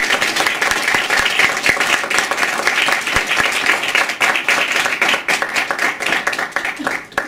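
Audience applauding: dense, steady clapping from a room of seated people, dying away near the end.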